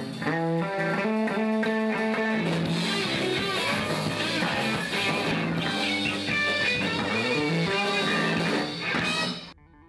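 Rock music with a melodic electric bass line and guitar, playing steadily and then cutting off suddenly near the end.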